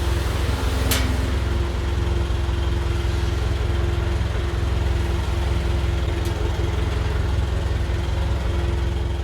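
A farm machine's engine running steadily, an even low rumble with a faint constant whine above it; a brief click about a second in.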